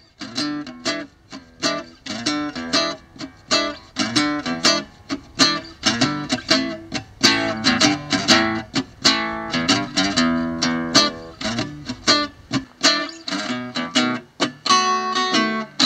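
Archtop acoustic guitar being played solo: a quick, steady run of plucked notes and chords.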